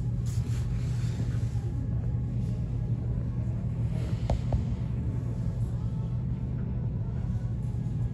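Steady low droning hum of a large indoor sports hall's background machinery, with two brief faint higher sounds about four seconds in.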